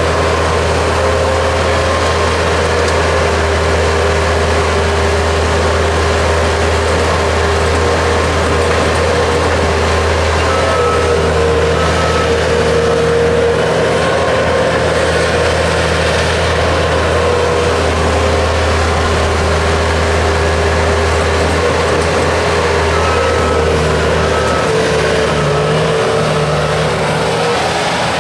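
Bobcat S220 skid-steer loader's diesel engine running steadily while it works, with a higher whine that wavers in pitch a few times.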